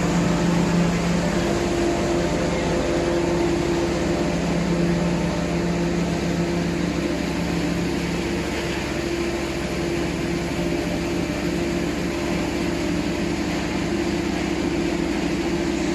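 Production-line machinery of a wood chipping and pellet plant running steadily: a constant machine hum with a broad hiss over it.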